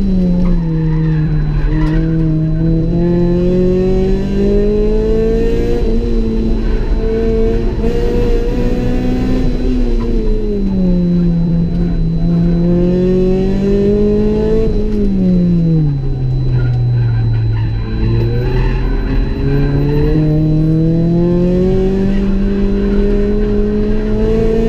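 Honda Civic EG's B18C 1.8-litre DOHC VTEC four-cylinder engine running hard on a track lap, heard from inside the cabin. Its pitch climbs steadily and drops again several times, and falls deepest for a couple of seconds before climbing once more.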